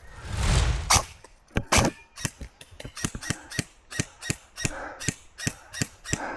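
Airsoft gun firing a steady string of single shots, sharp cracks at about three a second, after a second of rumbling handling or wind noise on the microphone at the start.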